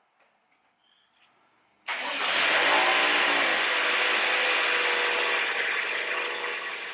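A 2021 Toyota RAV4's four-cylinder engine cranking and starting about two seconds in, then running at a fast idle that slowly eases off.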